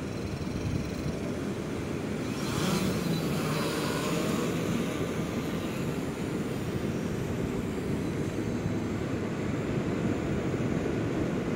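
Blade Chroma carbon-fiber quadcopter's rotors humming over a steady low rush, swelling about two and a half seconds in as the drone lifts off and climbs away.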